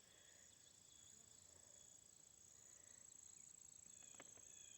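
Faint, steady high-pitched drone of insects in the background, with a couple of faint clicks near the end.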